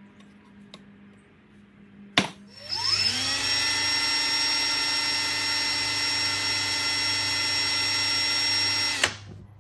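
An electric drill drilling out a hole in a fabricated metal dethatcher spindle hub. A sharp click comes about two seconds in, then the drill spins up to a steady high whine, holds for about six seconds, and stops abruptly with a click near the end.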